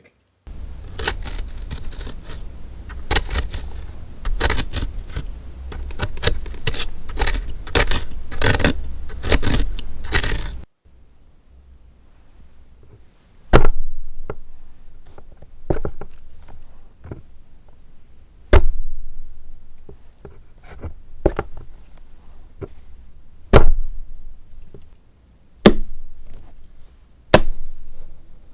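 Vegetables being worked for gore foley: about ten seconds of continuous wet crackling, scraping and tearing, then a lull. After that come about five sharp single stabs or chops a few seconds apart, with smaller ticks and scrapes between them.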